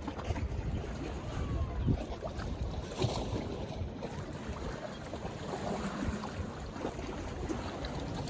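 Wind buffeting the microphone in uneven gusts, over the wash of waves against the jetty.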